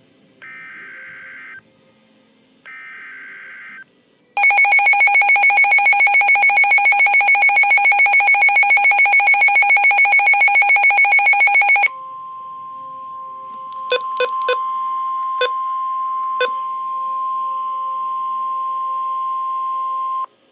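Emergency alert signal of a NOAA Weather Radio severe thunderstorm warning. It opens with two short buzzing bursts of digital header data about a second apart. A loud pulsing electronic alarm follows for about seven seconds, then a steady single warning tone just above 1 kHz for about eight seconds, broken by a few sharp clicks.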